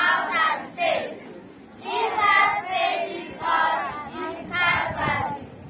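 A group of school students singing together in unison, in short phrases with brief pauses between them.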